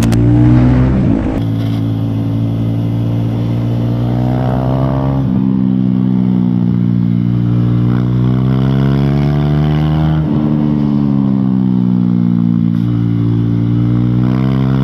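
KTM motorcycle engine running hard on a race track, pitch climbing under throttle and dropping sharply at gear changes about five and ten seconds in.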